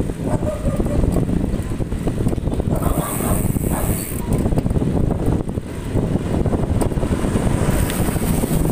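Wind buffeting the microphone of a handlebar-mounted phone on a moving motorcycle, a steady rumbling rush, with the motorcycle's engine and road noise underneath.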